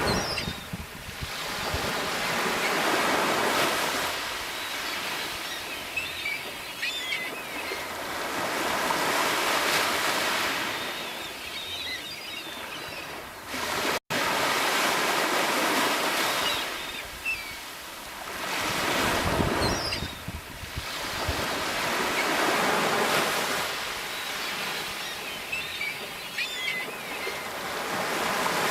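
Sea waves washing onto the shore, the surf swelling and fading every few seconds. The sound cuts out for an instant about halfway through.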